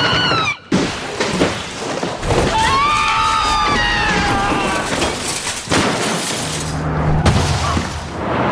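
Vehicles crashing: repeated crunching impacts and breaking glass, with a long high screech from about two and a half seconds in and another sharp impact near the end.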